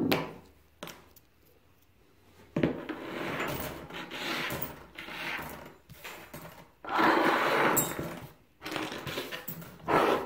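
Small rusty steel mower parts (nuts, washers, bolts, springs and pinion gears from a 1950s Ransomes Ace Mk.2 reel mower) being gathered off a wooden workbench and dropped into a wire mesh basket, clinking and rattling in three or four bursts of handling.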